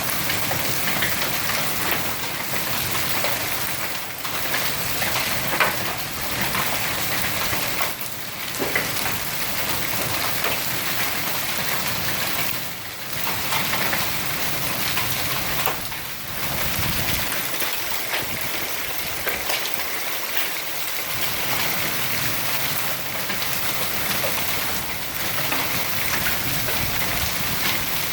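Large hail, about 2.25 inches across, pounding down with heavy rain: a dense, steady rush scattered with many sharp individual strikes.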